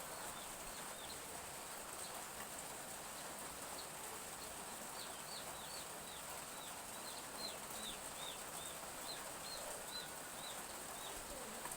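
Domestic chicks peeping: a run of short, high, falling peeps, busiest in the second half, over a steady soft hiss.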